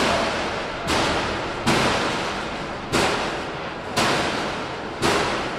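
Loud bangs on a hard surface, about one a second and six in all, each sharp hit ringing on and fading away before the next.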